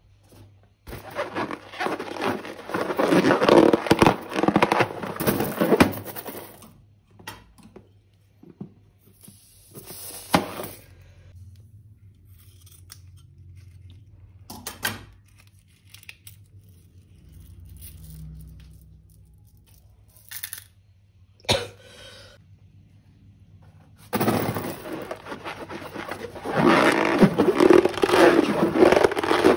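Latex balloons handled and rubbed close to the microphone, with rubber scraping and crackling in two long stretches, the second as a pink balloon is squeezed in both hands. Light clicks and taps of small items into a glass bowl come between.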